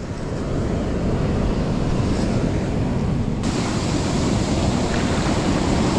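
Ocean surf rushing and washing up a beach, with wind on the microphone. The steady rush turns hissier about three and a half seconds in.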